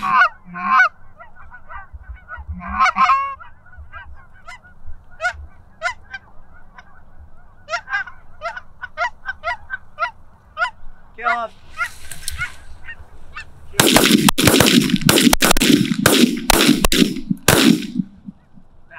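Geese honking as a flock comes in over the decoys. About 14 seconds in, a rapid volley of roughly a dozen shotgun blasts runs for about four seconds as several hunters fire together.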